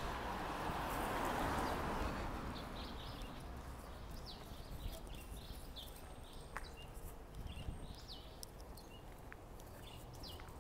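A car drives past close by, its tyre and engine noise swelling and fading over the first two to three seconds. After it, small birds chirp and call repeatedly in short high notes.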